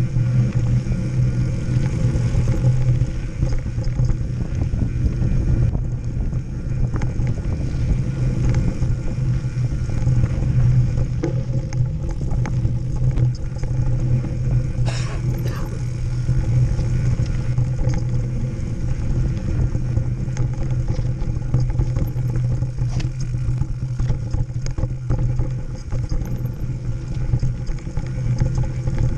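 Wind rushing over a bike-mounted action camera and mountain bike tyres running on a dirt trail at speed, a steady rumbling noise, with small rattles and knocks from the bike over bumps and one sharper knock about halfway through.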